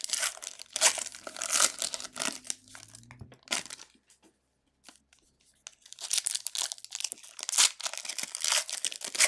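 Foil wrappers of 2018 Donruss football card packs torn open and crinkled by hand, crackling in quick irregular bursts. There is a pause of about two seconds near the middle.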